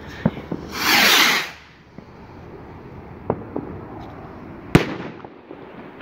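Fireworks going off: a loud hiss lasting about a second near the start, a few faint pops, then one sharp bang about five seconds in.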